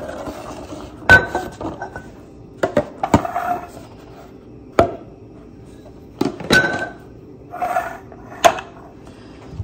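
Glass jars and bottles being set down and handled on a granite countertop: a series of sharp, irregularly spaced knocks and clinks, some with a brief glassy ring, the loudest about a second in.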